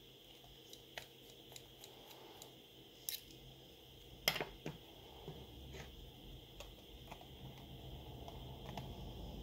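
Small metallic clicks and taps from a precision screwdriver working tiny screws on a phone's motherboard and frame, with tweezers handling the board. The sharpest click comes about four seconds in, and a faint low rumble builds near the end.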